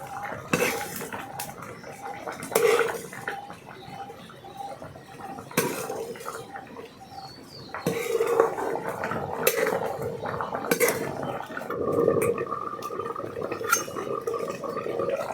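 Metal dishes and utensils clinking and scraping in irregular knocks, busier in the second half.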